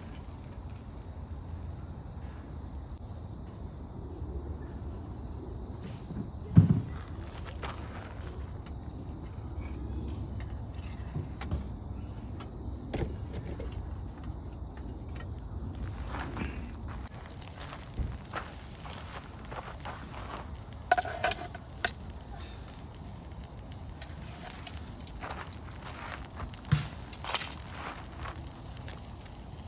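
Crickets or similar insects trilling continuously in a steady high-pitched band. A few light knocks are heard about seven seconds in, around twenty-one seconds and near the end.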